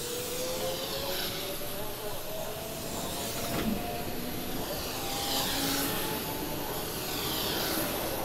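Electric commuter train pulling away, its traction motor whine rising steadily in pitch as it gathers speed, with a single sharp click about three and a half seconds in.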